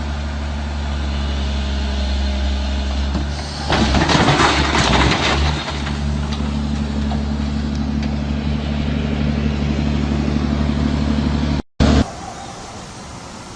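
An engine running steadily, with a loud noisy burst lasting about two seconds some four seconds in. The sound cuts off suddenly near the end, and a quieter scene follows.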